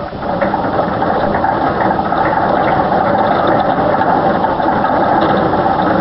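Hand-cranked electrophoric (Wimshurst) machine being turned to charge it: a steady, fast, ratchety mechanical clatter from its crank and drive.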